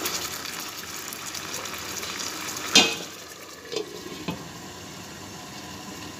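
Chicken in yogurt gravy sizzling in a nonstick pan while a wooden spatula stirs it, with fine crackling. About three seconds in there is one sharp clank, then two lighter clinks as a glass lid is set on the pan, and the pan goes on simmering covered.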